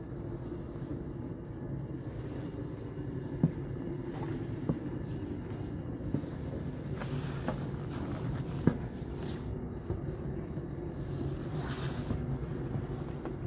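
A steady low mechanical rumble, with three short sharp knocks along the way.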